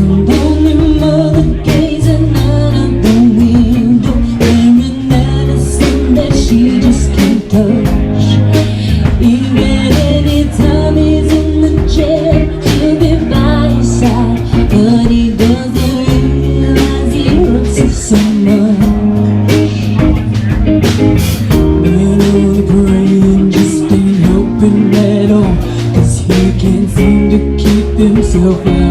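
A song with a sung voice over guitar, bass and a steady drum beat.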